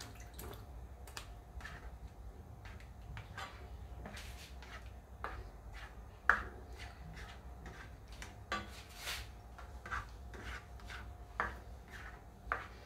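Spatula stirring paneer cubes into thick spinach gravy in a nonstick pan: irregular soft scrapes and taps against the pan, with one sharper knock about six seconds in.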